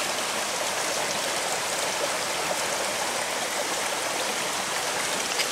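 Small rocky stream rushing steadily, water running over stones in small cascades.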